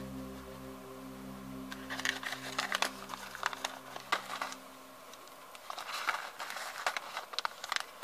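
Small paper seed envelope being handled and unfolded by hand, crinkling and rustling in short bursts. A held chord of background music fades out over the first half.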